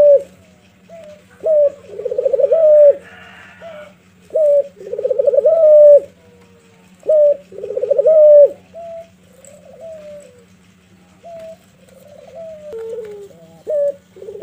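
A domestic ringneck (Barbary) dove, the Indonesian puter, cooing: three times a short note followed by a long, rolling coo that drops in pitch at the end, then softer, shorter coos near the end. A faint steady low hum runs underneath.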